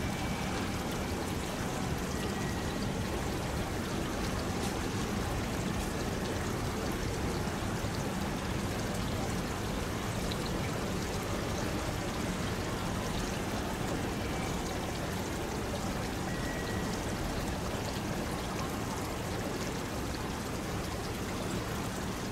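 Steady rain falling, an even hiss of water that does not let up.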